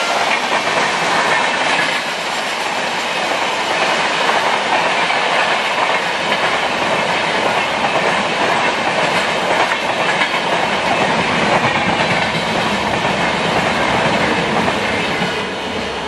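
Express train of LHB passenger coaches passing close by at speed: a steady, loud rush of wheel and rail noise as coach after coach goes by.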